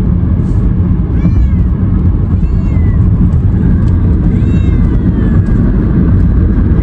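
A domestic cat meowing three times. Each call rises and then falls in pitch, and the third is the longest. A steady low rumble runs underneath.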